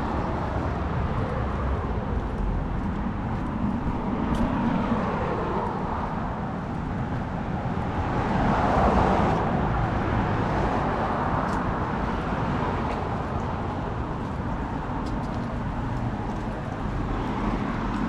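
Road traffic: cars passing on the street alongside, rising to a louder swell as one goes by about nine seconds in, with a smaller pass about four seconds in, over steady city background noise.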